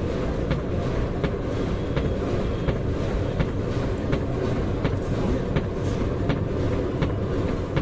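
Forge blower forcing air into a blazing charcoal forge: a steady rumble of fan and fire, with a light click repeating about every three-quarters of a second.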